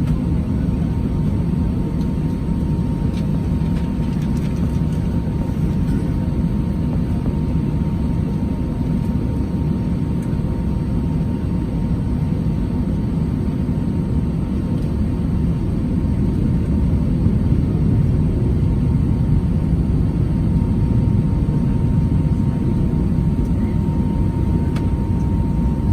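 Cabin noise inside an Airbus A319 on the ground before takeoff: a steady low rumble with a faint, steady high whine over it.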